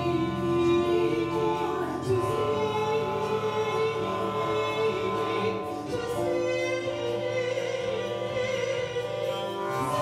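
A woman sings in operatic style in long held notes over the long-string harp, whose strings are stroked with gloved hands to give sustained, drone-like tones. The pitches change about two seconds in and again about six seconds in.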